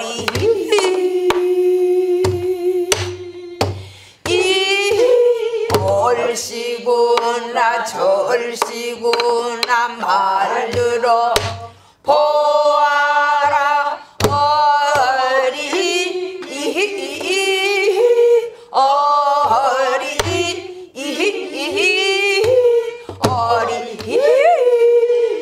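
A woman singing a Korean Namdo japga folk song in full voice, long held notes bending and shaking, on refrain vocables like "eo eori hii... eolssa nerogura". Beneath it, irregular strokes of a stick and hand on a buk barrel drum keep the rhythm.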